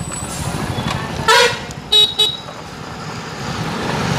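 A vehicle horn honks three times: a longer toot about a second in, then two short toots in quick succession about two seconds in, over steady traffic noise.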